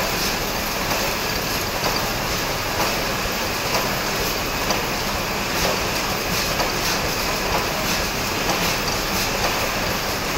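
Automated factory production-line machines running, a steady dense mechanical clatter of many rapid small clicks.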